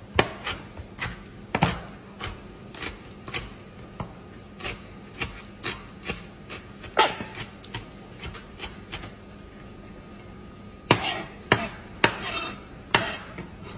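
Large kitchen knife chopping red onion on a wooden cutting board: a string of knocks as the blade hits the board, about two a second, with a louder, quicker run near the end.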